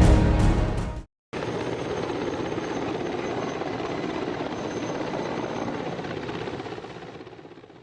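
Helicopter running steadily: a continuous rotor and turbine noise that fades out near the end. About a second in, loud music cuts off abruptly, followed by a short silence before the helicopter is heard.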